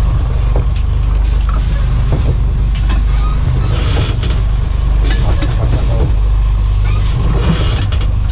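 A boat's engine running steadily with a low drone, with bursts of hiss over it.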